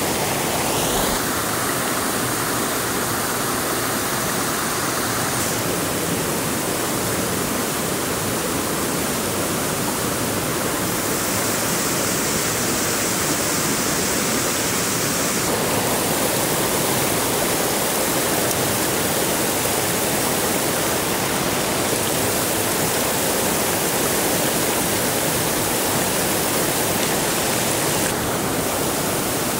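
Steady hiss of rushing water, with its tone shifting abruptly a few times.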